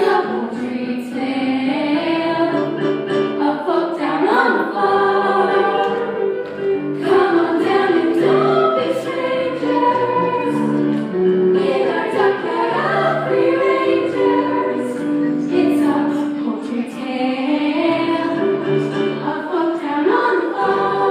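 Music: a cast choir singing a musical-theatre song in chorus, with sustained notes throughout.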